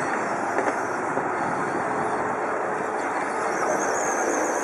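Short-course RC trucks racing on a dirt track: a steady whir of motors, gears and tyres on dirt. A thin, high wavering motor whine comes in about three and a half seconds in.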